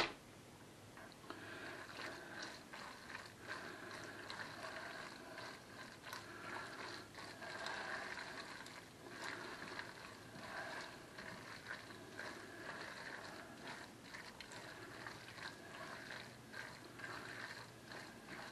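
Thick macaroni and cheese being stirred in a stainless steel pot, with soft, irregular scraping and squishing from the utensil working through the sauce and against the pot. It goes on without a break.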